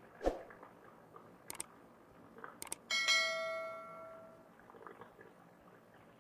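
Sound effect of a YouTube subscribe-button animation: a short thump near the start, a few mouse clicks, then a notification bell ding about three seconds in that rings out over a second and a half.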